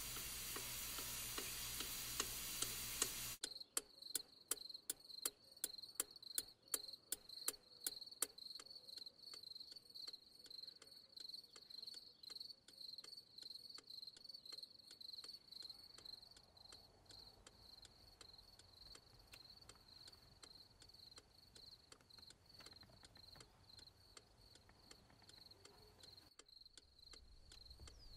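A loud steady hiss cuts off suddenly about three seconds in. Then crickets chirp steadily in the quiet, at first over a rapid train of ticking clicks that fades out within a few seconds.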